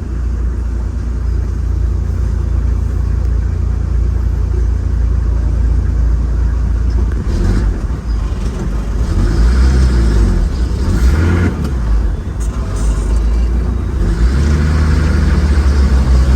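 A motor vehicle driving, with a steady heavy low engine and road rumble. The engine pitch rises and falls a few times around the middle.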